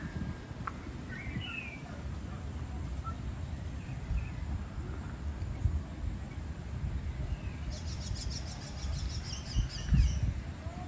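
Wind buffeting the microphone in gusts, with birds calling over it: a few short chirps, then a rapid high trill lasting about two seconds, beginning about eight seconds in. The strongest gust comes near the end.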